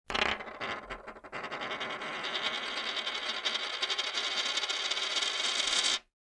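An edited-in outro sound effect: a few sharp hits in the first second or so, then a steady bright high-pitched shimmer for about five seconds that cuts off abruptly.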